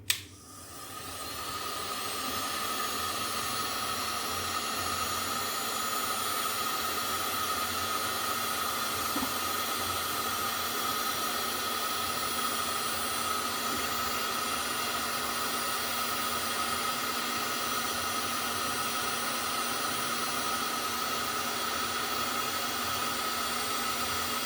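Heat gun blowing hot air to shrink heat-shrink tubing: a steady hiss with a high fan whine. It starts at the very beginning, builds over about two seconds, then holds.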